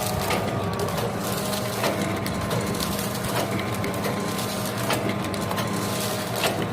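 Automatic sachet filling and packing machine running, a steady mechanical hum with sharp clicks at roughly one-second intervals.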